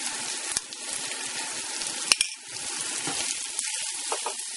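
Chopped onion and tomato frying in vegetable oil in a pan, with a steady sizzle, as curry paste is spooned in and stirred. There is a single sharp clink about two seconds in.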